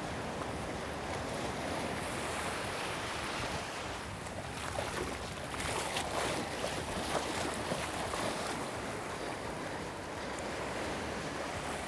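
Surf washing over the shallows with wind buffeting the microphone. About halfway through comes a louder stretch of splashing as the hooked blacktip shark thrashes in the shallow water while being grabbed.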